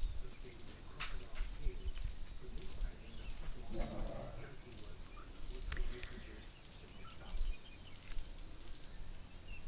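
Steady high-pitched insect chorus, a continuous shrill hiss that pulses slightly, with faint low rumbles underneath.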